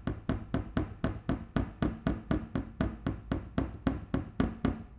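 A Xiaomi Mi A3 smartphone rocking on its protruding rear camera bump against a desk, clacking about four times a second and stopping just before the end. The clacks are the phone wobbling on a flat surface because of the camera bump.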